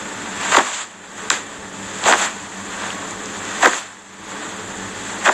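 Five short, sharp puffs of noise close to the phone's microphone, irregularly spaced about a second apart, over a faint steady hiss.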